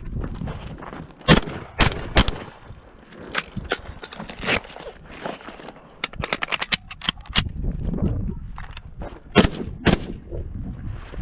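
Norinco SKS rifle in 7.62×39 firing semi-automatic: several single shots, then a quick string of about eight shots in a little over a second, then two more shots near the end.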